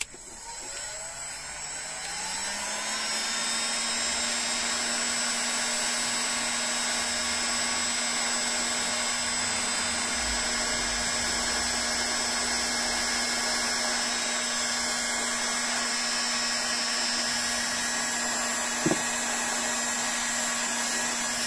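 Bosch PHG heat gun running, blowing hot air to shrink heat-shrink tubing over a crimped cable lug. Its fan motor spins up over the first couple of seconds to a steady whir with a rush of air, then cuts off suddenly at the end.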